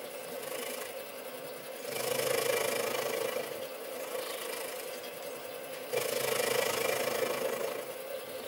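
Sieg SC3 mini lathe running as the tool faces a workpiece: a steady mechanical hum that gets louder about two seconds in and again about six seconds in, the second time suddenly.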